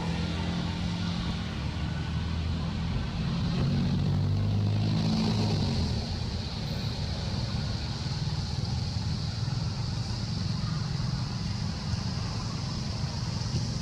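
A motor vehicle's engine running, its pitch shifting over the first six seconds and then settling into a steadier low rumble, over a steady high-pitched hiss.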